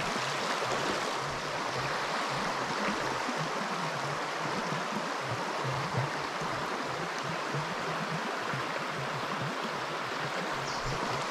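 Shallow river running over a gravel riffle: a steady rush and babble of water.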